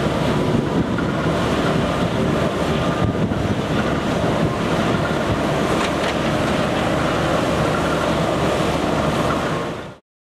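Wind buffeting the microphone over outdoor background noise: a steady, deep rushing sound that cuts off suddenly to silence near the end.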